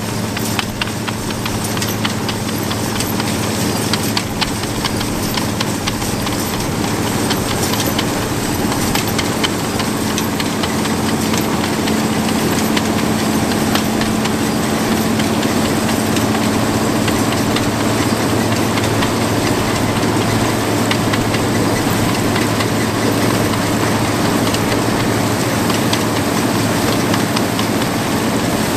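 Vintage Massey-Harris self-propelled combine harvester working under load as it cuts and threshes cereal: a steady engine hum with a constant dense clatter and rattle from the cutter bar and threshing gear.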